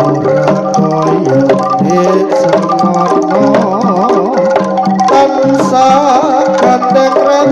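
Live Javanese jaranan gamelan music played through a loudspeaker system: hand-drum strokes over ringing metallophone and gong tones, with a wavering melodic line rising over it about three seconds in and again near the end.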